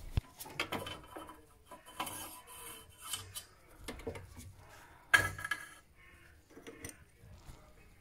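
Handling noise as a gloved hand works on the boiler's ignition electrode and its wiring leads: light scrapes, rubbing and small clicks, with one louder clack about five seconds in.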